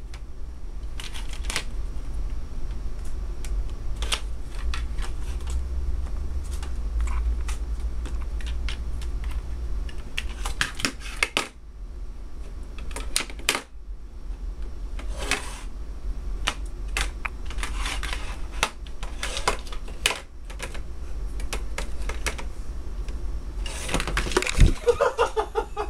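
Small white plastic toy pencil sharpener clicking and clattering against a wooden desktop as a kitten bats, pounces on and chews it, in irregular taps and knocks. A short pitched call is heard near the end.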